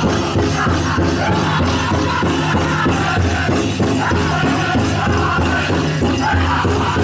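Powwow drum group playing a chicken dance song: several singers strike one big drum together in a steady beat while singing as a group, with a rattling jingle of dancers' bells over it.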